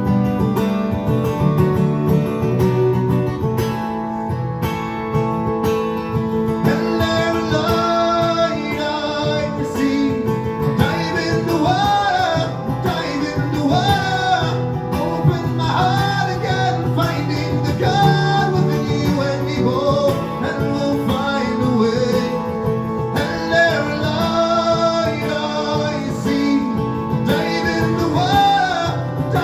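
Live acoustic guitar playing through a passage of the song with no lyrics. From about seven seconds in, a wordless melodic line with rising and falling notes plays over the chords.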